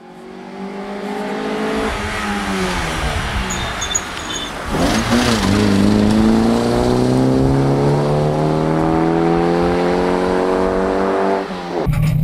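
On-board sound of a Polonez 2000 Rally car's engine under hard driving: the revs fall off for a couple of seconds, then climb steadily through one long pull in gear, and drop sharply at an upshift near the end.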